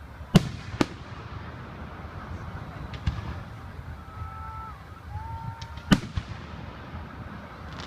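Aerial fireworks exploding: two sharp bangs half a second apart, another about three seconds in, and two more close together about six seconds in, over a steady background hiss and rumble. A brief steady tone sounds in the middle.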